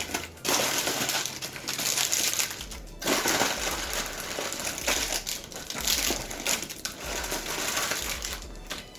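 Ink cartridge packaging rustling and crinkling as it is handled and searched through, with a short break about three seconds in.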